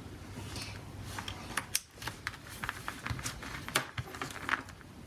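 Small scattered clicks and light rustling as a USB charging cable is handled and its plugs are pushed into the sockets, over a low steady hum.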